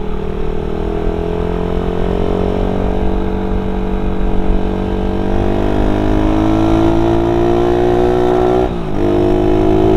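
Suzuki Satria FU 150's single-cylinder four-stroke engine, breathing through a coiled type-C header pipe and stock muffler, pulling under acceleration with its pitch climbing steadily. Near the end the note drops briefly, then picks up again.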